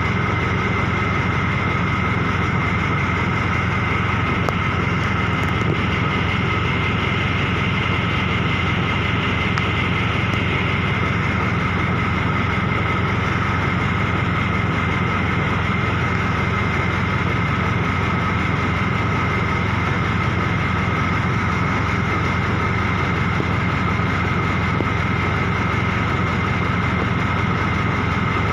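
A machine running steadily: an unchanging engine-like drone with two steady high whining tones over it.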